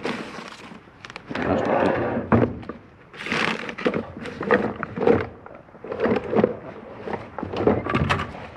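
Rummaging through plastic buckets of sheep-handling kit: plastic bags rustling and bottles and tools knocking against each other and the bucket sides in irregular clunks.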